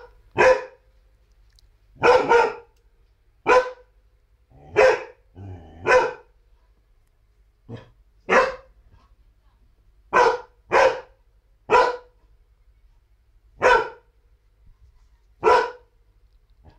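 A large dog barking in single loud barks, one every second or two, about a dozen in all.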